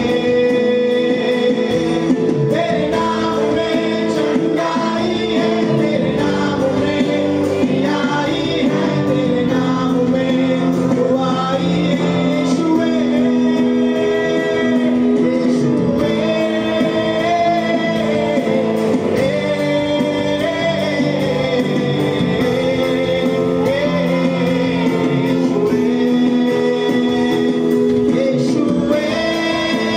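A Hindi Christian worship song sung by a male worship leader and the congregation together, with instrumental accompaniment.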